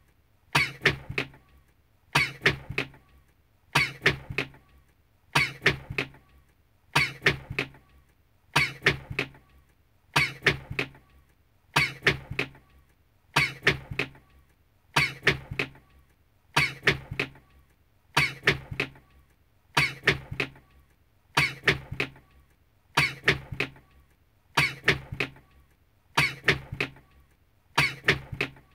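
A man's recorded sneeze played as a loop, the same sneeze repeating about every 1.7 seconds, roughly seventeen times.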